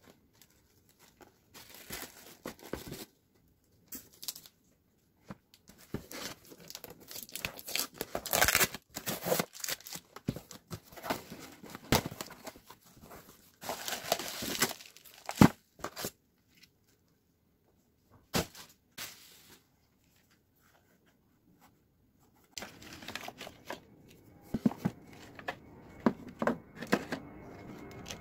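Gift packaging being torn open and handled: tape tearing off a foam box, and cardboard flaps and plastic wrapping rustling and crinkling. The noise comes in irregular bursts, with a quiet stretch of a few seconds past the middle.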